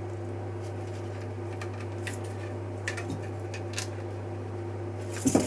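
Faint scattered clicks and taps of small parts being handled, over a steady low hum, with a short louder clatter near the end.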